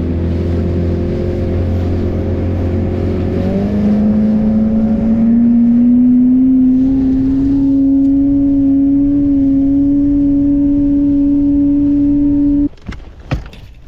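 A boat motor running with a steady hum. About three seconds in its pitch steps up, then climbs slowly and holds, and it cuts off suddenly near the end.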